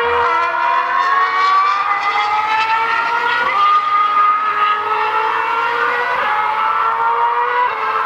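2013 Formula One car's 2.4-litre V8 engine at high revs, a high-pitched tone that climbs slowly in pitch as the car accelerates, with a short dip near the end.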